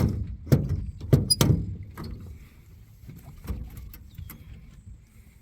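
A run of sharp knocks and thumps, several close together in the first two seconds and one more about three and a half seconds in.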